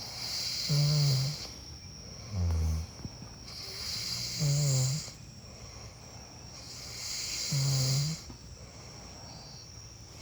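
A sleeping person snoring: four rough, pitched snores about two to three seconds apart, each with a breathy hiss, the second one lower and shorter. A steady high insect drone runs underneath.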